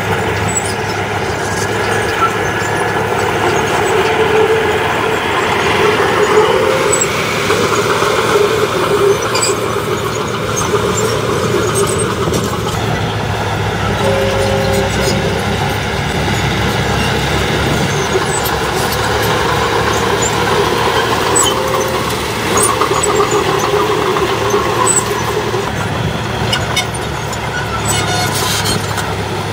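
Komatsu crawler bulldozer's diesel engine running steadily under load as the dozer pushes loose stone and soil, with scattered sharp clanks and knocks from its tracks and the rocks.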